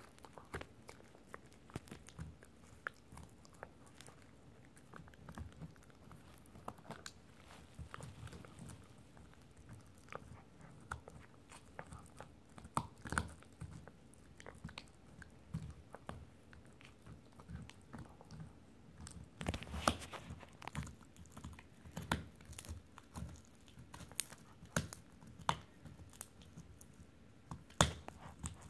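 Italian greyhound chewing and gnawing a rawhide Dingo bone: irregular crunches and sharp clicks of teeth on the hard rawhide, with a few louder crunches in the second half.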